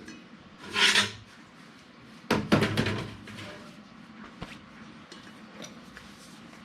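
Duct pipe and booster fan being handled and test-fitted: a short scrape just under a second in, then a quick cluster of knocks and rattles about two and a half seconds in, followed by a few faint clicks.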